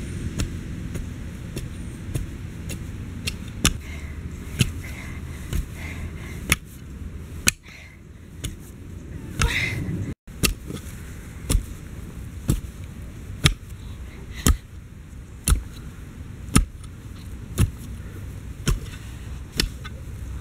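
Metal blade of a long-handled digging tool striking into soil again and again: sharp strikes, irregular at first, then steady at about one a second in the second half. A low steady rumble sits under the first several seconds.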